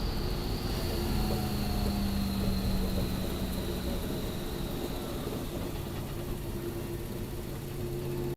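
Car engine running at a steady speed, with a high whine that slowly falls in pitch.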